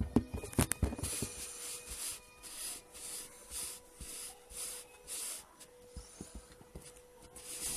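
Hands working kinetic sand: a soft rustling that repeats about twice a second, after a few light knocks at the start.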